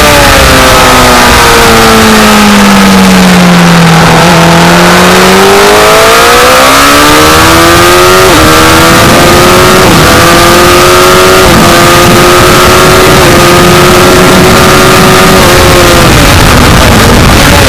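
Honda CBR1000RR SC57 inline-four engine heard on board over heavy wind rush. Its revs fall smoothly into a corner, climb back up on the exit, hold nearly level with a few brief dips in the note, and drop again near the end.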